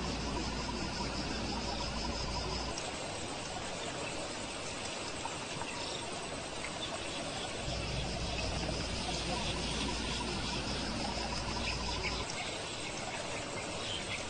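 Insects chirring in a steady high buzz that drops away about three seconds in and returns from about eight to twelve seconds.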